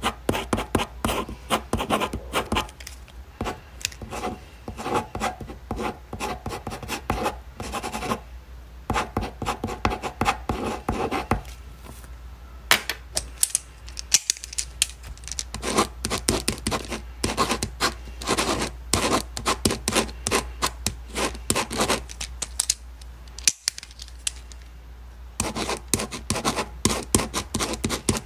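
Ballpoint pen writing on paper: quick, irregular scratching strokes in runs, with a few short pauses where the pen lifts.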